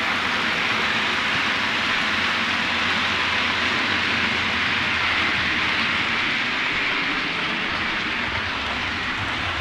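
Model trains rolling along the layout's track and passing each other, making a steady rushing noise of wheels and motors.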